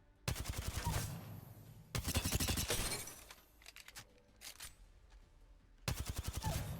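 Machine-gun sound effect: three bursts of rapid automatic fire, starting about a third of a second in, about two seconds in, and about six seconds in.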